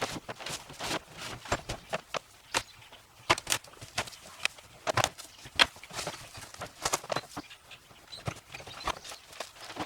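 Irregular clicks and knocks from handling and unpacking a boxed pressure washer and its accessories.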